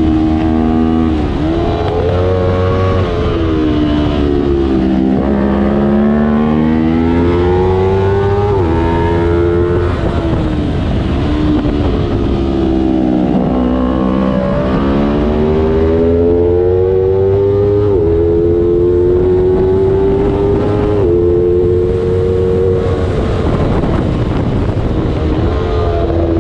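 Small-displacement road-racing motorcycle engine at full throttle, its pitch climbing with sudden drops at each upshift and sweeping down as it slows for corners, several times over.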